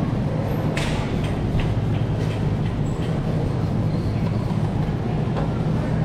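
Wire shopping cart rolling over a hard store floor, its wheels and basket giving a steady rattling rumble over a constant low hum, with a sharp click about a second in.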